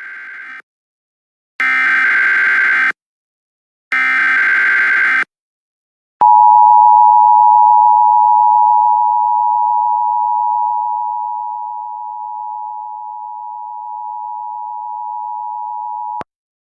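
Emergency Alert System tones: the tail of one SAME header data burst, then two more identical data bursts about a second apart. Then comes the steady two-tone attention signal, held for about ten seconds, easing down in level partway through and cutting off abruptly.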